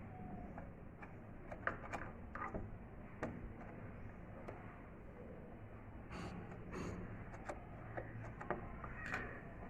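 Screwdriver working a screw out of a wooden radio's back panel: scattered small clicks and short scrapes at an irregular pace.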